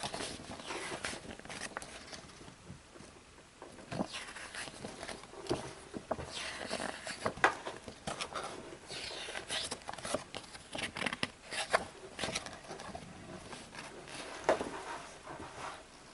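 Handling of a miniatures kit's packaging and plastic parts: irregular rustling, crinkling and small clicks as pieces are moved about and unwrapped.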